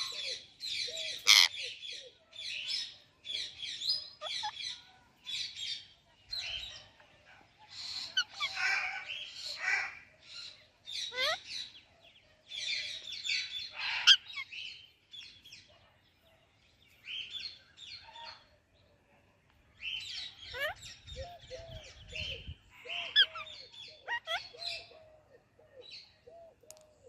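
Indian ringneck and Alexandrine parrots chirping: rapid runs of short, high chirps mixed with lower, curving calls, broken by a pause of a few seconds a little past the middle.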